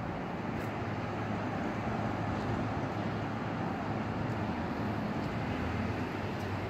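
Steady outdoor rumble with a low, even hum underneath, no distinct events.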